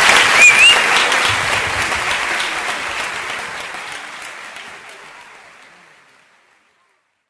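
Concert audience applauding, with a short high-pitched call from the crowd about half a second in. The clapping fades away to silence by about six seconds in.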